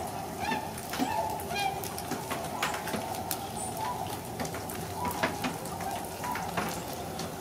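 A large flock of swans calling from across the marsh: a steady chorus of many overlapping calls, with a few individual calls standing out now and then.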